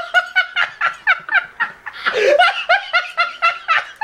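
High-pitched laughter: a fast run of 'ha-ha' syllables, about five a second, with a short break about two seconds in.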